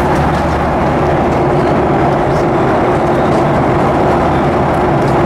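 Cabin noise of a Boeing 737-800 at cruise: a steady drone of its CFM56-7B turbofans and rushing airflow, with a constant low hum.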